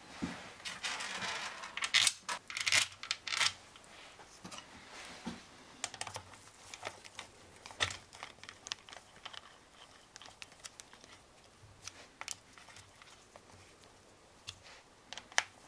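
Small metal-on-metal clicks and scrapes from a hex key and the oil pump's screws, while the oil pump is bolted into a Yamaha XT600 crankcase. A quick run of clicks and scraping comes in the first few seconds, then scattered light ticks.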